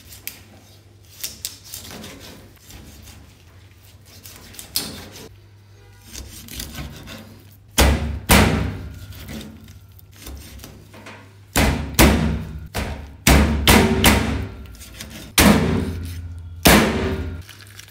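A heavy cleaver chops through seer fish (king mackerel) and its backbone onto a plastic cutting board. A few lighter cuts come in the first half, then from about eight seconds in a run of loud, hard chops in pairs and singles.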